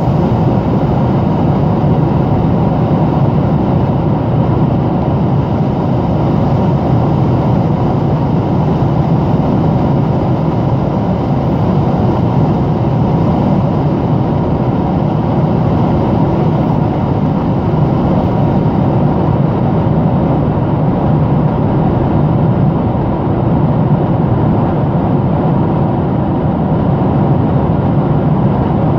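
Steady cabin noise of a Boeing 747-400ER in cruise, heard inside the cabin: an even rumble of airflow and its General Electric turbofan engines, unchanging throughout.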